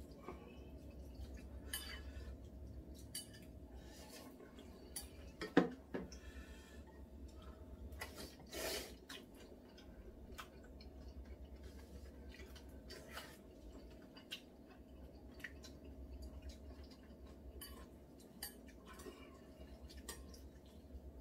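Chopsticks clicking and scraping against ceramic bowls and the noodle pot as black-bean-sauce noodles are served and eaten, with a noodle slurp, over a low steady hum.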